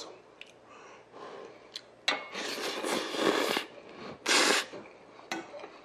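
A person slurping cold spicy buckwheat noodles (bibim makguksu): one long noisy slurp about two seconds in, then a second shorter, sharper one about four seconds in.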